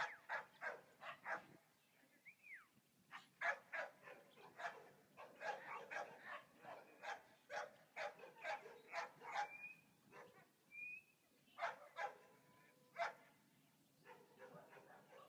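A dog barking over and over, in quick runs of a few barks a second broken by short pauses.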